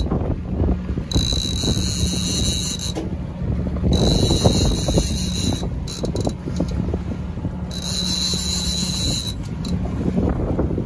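Wind buffeting the microphone over the steady low hum of the boat's engine and the slap of water on the hull. A high hiss comes and goes in stretches of a second or two.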